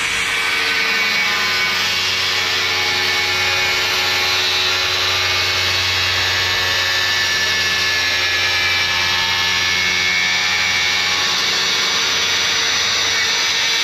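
DeWalt circular saw running at speed with a steady whine, its blade making a slow crosscut through a wooden board.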